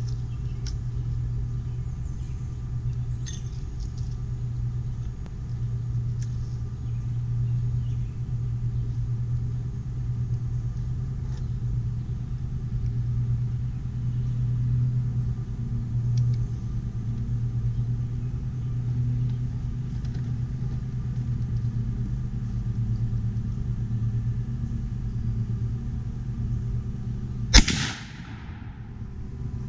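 A single loud shot from a .50 caliber Traditions Kentucky long rifle, a black-powder muzzleloader, near the end, with a short fading tail. Before it, a steady low rumble.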